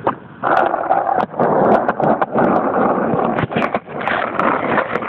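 Skateboard wheels rolling over rough asphalt: a steady gritty rumble that sets in about half a second in, dips briefly a little past the middle and carries on, with sharp clicks and ticks running through it.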